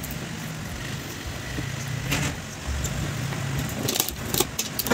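A steady low mechanical drone like an idling engine, with a few sharp metallic clicks near the end as the cast-iron pump casing is seated onto the submersible motor.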